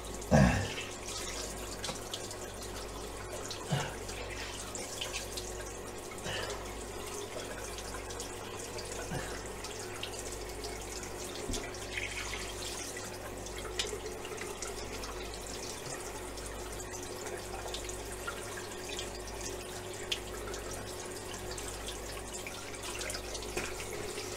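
Bathroom tap running into a sink, with splashes and a few small knocks as the face is rinsed after a shave, and a louder knock about half a second in.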